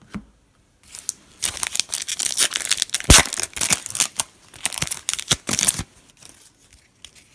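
Plastic foil wrapper of a trading card pack being torn open and crinkled. A dense spell of crackling and tearing lasts about five seconds, with one sharp snap about three seconds in, then a few faint rustles.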